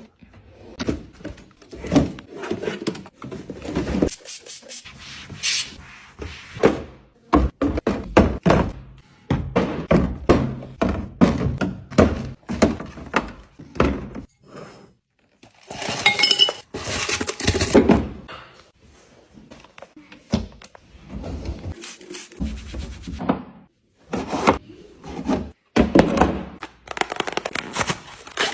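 Handled kitchen items being set down and arranged: a quick, irregular run of thunks, knocks and light clinks, with a longer stretch of rustling about two-thirds of the way through.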